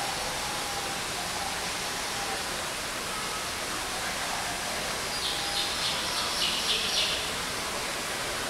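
Steady rushing background noise, with birds calling. There are a few faint thin whistles early on, and a quick run of high chirps about five seconds in, lasting about two seconds.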